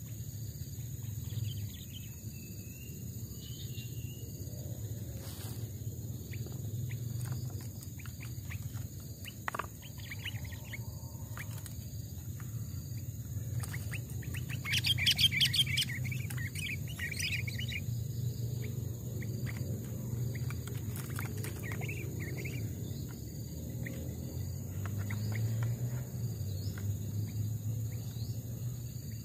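Sooty-headed bulbuls (kutilang) calling in short chirps and phrases, loudest in a dense burst of chirping about halfway through. A steady low hum and a faint, steady, high insect-like drone run underneath.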